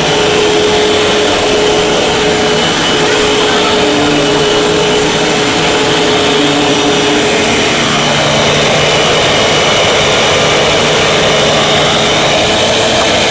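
Eureka AS3401A bagless upright vacuum cleaner running steadily, its motor whine changing pitch about eight seconds in.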